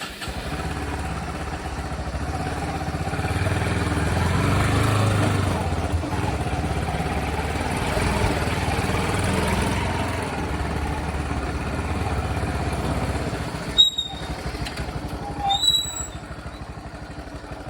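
Bajaj Pulsar NS160's single-cylinder engine running steadily as the motorcycle is ridden, then cutting off suddenly. A few short high squeaks follow.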